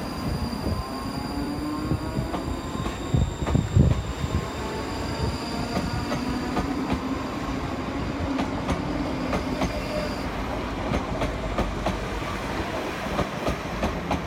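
Two coupled ScotRail Class 334 electric multiple units pulling out and passing close by. A steady high electric whine runs until about ten seconds in, with many wheel clicks over the rail joints and a louder rumble around three to four seconds in.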